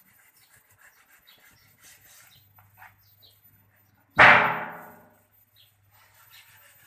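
A single loud metallic clang about four seconds in, ringing and dying away over about a second, over a faint low hum.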